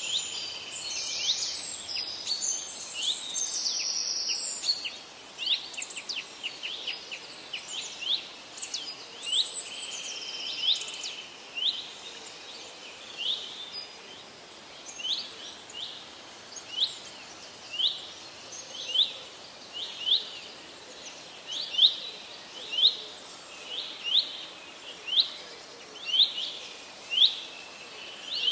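Birds calling: a dense mix of varied chirps for the first ten seconds or so, then a run of short, sharp upward chirps repeated about once a second.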